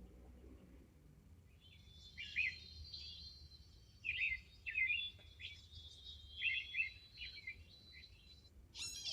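Small birds chirping: short, high, downward-sliding chirps in a few quick clusters, over a thin steady high-pitched note.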